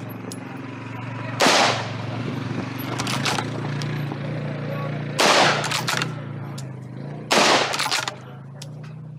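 Three loud gunshots from a long gun fired during a practical-shooting stage, the first about a second and a half in, the others near 5 and 7 seconds. Each is followed by a few shorter clacks. A steady low hum runs underneath.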